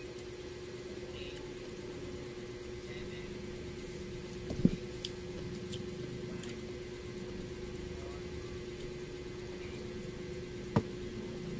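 A steady mechanical hum with one even tone throughout, with a sharp knock about a third of the way in and a smaller one near the end, among faint handling noises of pomelo flesh being picked apart and eaten.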